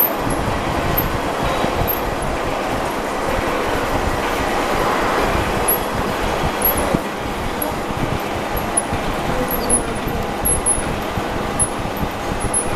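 Horizontal boring machine running, its spindle driving a twist drill into a metal block: a steady machine hum and rumble with the noise of the drill cutting.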